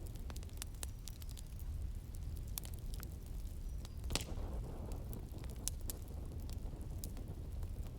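Wood fire crackling in a fireplace: irregular sharp pops and snaps, one louder pop about four seconds in, over a steady low rumble, with soft rain in the background.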